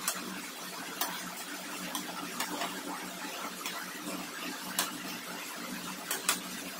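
A slotted metal spatula stirring a simmering vegetable curry in a stainless steel pan, clinking sharply against the pan about once a second over a steady hiss.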